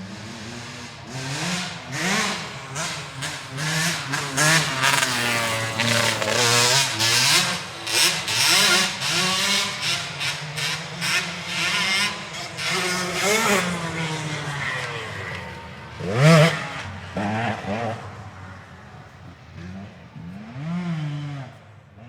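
Motorcycle engine revving again and again, its pitch climbing and dropping with each blip of the throttle. It is loudest through the middle, gives one sharp high rev near the end, then dies down.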